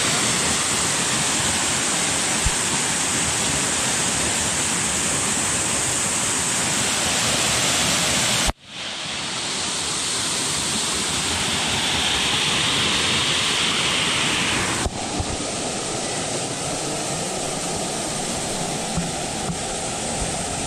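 Waterfall pouring into a pool, a steady loud rush of falling water heard close up. The sound cuts out for an instant about eight seconds in, then returns, changing slightly in tone around fifteen seconds.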